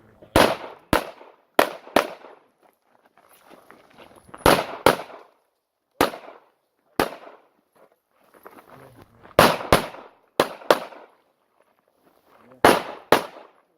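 Sig Sauer P320 X5 pistol fired in quick pairs: about fourteen shots, two to a target, with pauses of one to two seconds between pairs. Each shot has a short echo.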